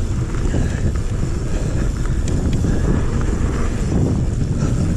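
Wind buffeting the microphone of a camera on a mountain bike riding fast down a dirt forest trail, a steady low rumble mixed with the tyres rolling over the ground and a few small rattles of the bike.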